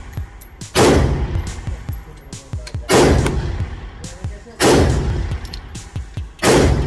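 Gunshots at an indoor shooting range: four loud shots about two seconds apart, each followed by a long echoing decay, with fainter shots from other lanes in between.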